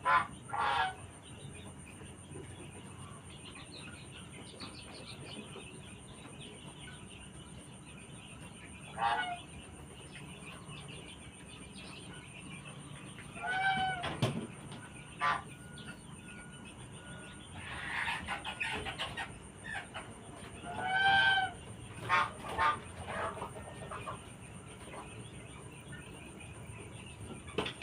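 Chickens clucking and squawking in scattered calls. Several are drawn-out pitched squawks, with runs of short clucks between them and quiet stretches of a few seconds.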